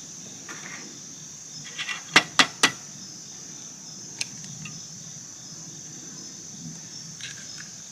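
Crickets chirring in a steady high band, with three sharp knocks in quick succession about two seconds in and a single fainter click a couple of seconds later.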